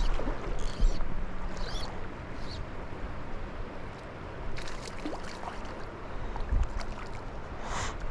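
Wind buffeting the microphone beside a river, a gusty low rumble over running water, with a few brief light ticks or splashes.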